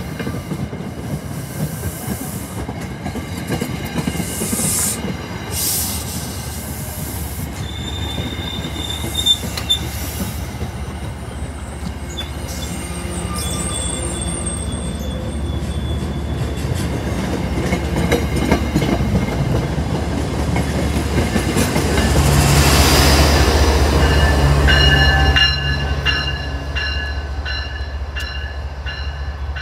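Diesel-hauled commuter train rolling slowly past on curving track, its wheels squealing with thin high steady tones that come and go. The locomotive's engine drone grows loudest about three quarters of the way through as it passes nearest, then eases off.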